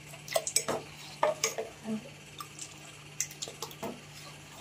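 Steel ladle clinking and scraping against a stainless steel pot in irregular light clicks as thin urad dal flour batter is stirred and poured back from the ladle, over a faint steady hum.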